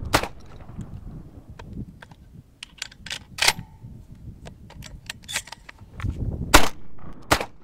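Benelli M1 semi-automatic shotgun being handled and reloaded: an irregular series of sharp metallic clicks and clacks as shells come off the side-saddle carrier and go into the tube magazine, with a few louder clacks in the middle and near the end.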